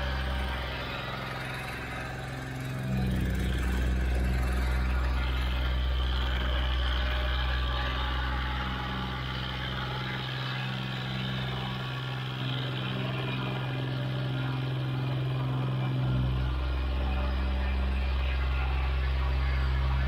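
Plate compactor's engine running with its plate vibrating: a steady engine hum with a deep low throb. The throb comes in about three seconds in, fades for a few seconds past the middle and comes back.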